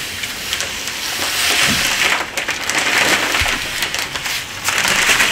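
Hollywood Wyoming bentonite clay cat litter pouring from its bag into a litter basin: a dense granular hiss that swells and thins as the stream changes.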